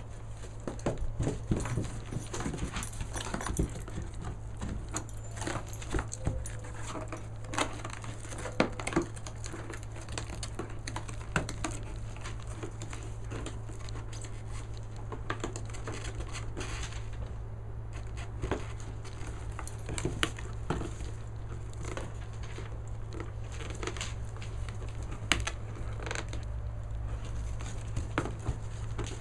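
A teething Giant Schnauzer puppy rooting in and chewing an empty cardboard beer case: irregular scrapes, rustles and knocks of cardboard, over a steady low hum.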